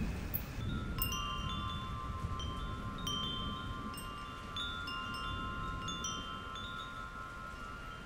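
Wind chimes ringing: metal tubes struck at irregular moments, each note sustaining, starting about a second in. A low rumble runs underneath.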